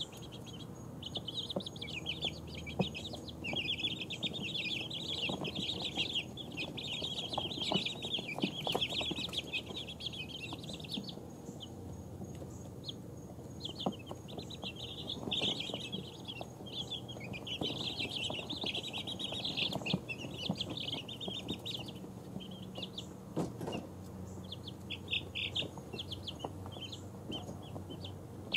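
A mixed-breed flock of two-week-old chicks peeping: rapid high chirps come in dense bursts, broken by a few short lulls.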